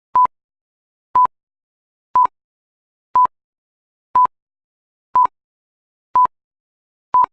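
Short electronic beeps of a single pure tone, one each second, eight times, with silence between: a countdown beep sequence of the kind that opens an edited video.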